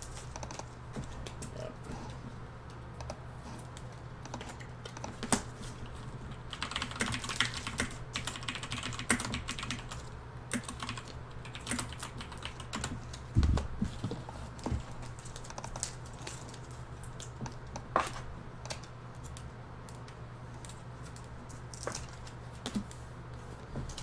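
Typing on a computer keyboard: irregular runs of small key clicks, busiest about a third of the way in, with one dull thump past the middle, over a steady low hum.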